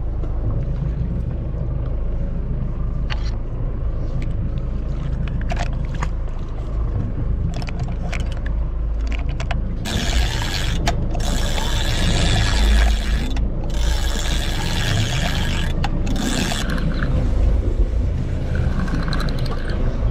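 Steady low rumble of a fishing boat at sea. About ten seconds in comes a loud rushing hiss, broken by brief gaps, which stops near seventeen seconds.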